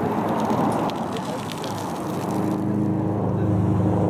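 A motor engine running with a steady low hum that comes in about halfway, over a rumbling background noise.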